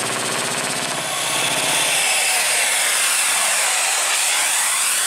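Isuzu Traga light truck's diesel engine clattering under load as the truck climbs close by. About two seconds in, the clatter gives way to a louder rush with sliding whining tones as it passes.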